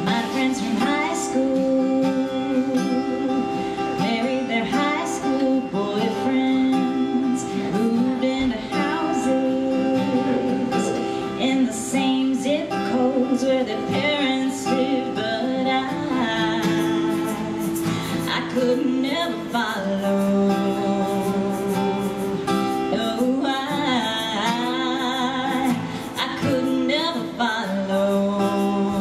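Live country song: strummed acoustic guitar with a woman singing over it.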